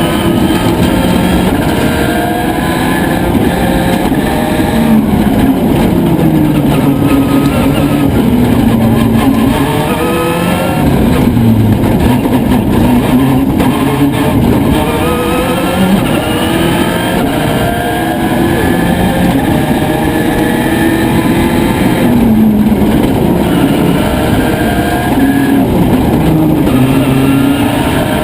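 Subaru Impreza WRC rally car's turbocharged flat-four engine running hard at full stage pace. It revs up through the gears, rising in pitch and dropping at each shift, over and over, with no let-up.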